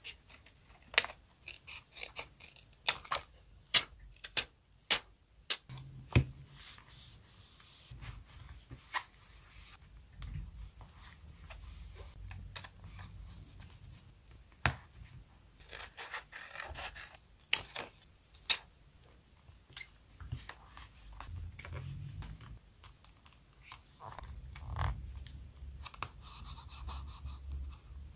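Small scissors snipping through a paper sticker sheet, short sharp clicks in the first several seconds. After that come paper handling sounds as stickers are lifted with metal tweezers and pressed onto the journal page: stretches of soft rubbing and rustling with an occasional tap.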